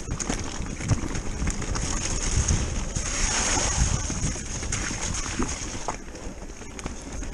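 Electric mountain bike rolling fast down rough singletrack: a steady run of knocks and rattles from the bike and handlebar-mounted camera over the bumps, with wind on the microphone. About three seconds in, a louder rush as the bike brushes through overhanging vegetation.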